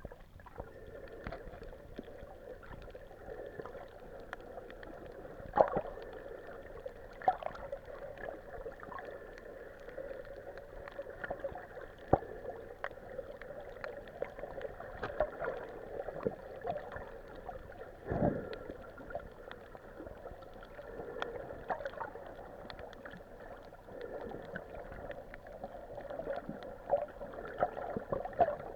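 Muffled underwater sound picked up by a hand-held camera filming beneath the sea: a steady dull hum with scattered clicks and several sharper knocks.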